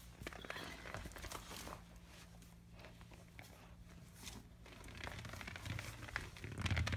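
Scratchy rustling and irregular clicks of a hard plastic ball being gripped in a hand and mouthed by an Akita puppy, getting louder near the end.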